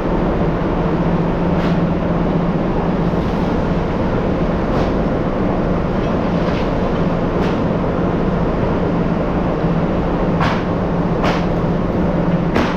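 Factory machinery running with a loud, steady rumble and a constant low hum, with occasional sharp knocks at irregular intervals.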